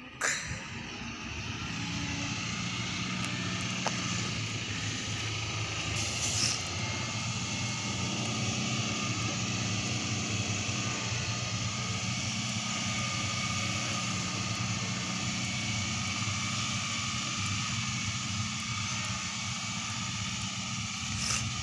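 Heavy tipper dump truck's diesel engine running steadily under a broad hiss as the truck drives over a dirt haul road.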